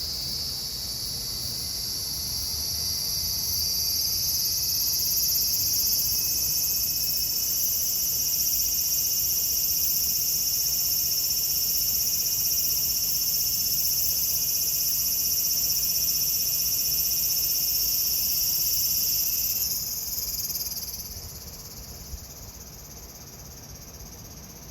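A cicada singing: a loud, steady, high-pitched buzzing drone that swells over the first few seconds, holds, and fades out about twenty seconds in.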